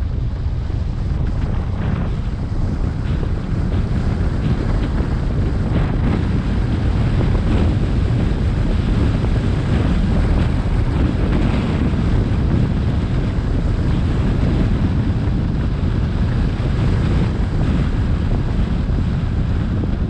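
Wind buffeting the microphone: a loud, steady, rumbling rush heaviest in the low end, with no clear pitch.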